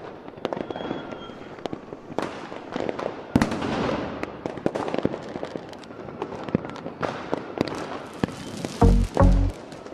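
Fireworks going off: a steady run of sharp bangs and cracks, with crackling in between. Near the end, electronic music with heavy drum beats starts.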